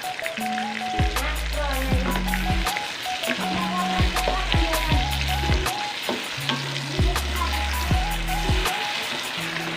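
Food sizzling in a hot frying pan, with frequent sharp crackles and the clatter of stirring, over background music with bass notes and a simple melody.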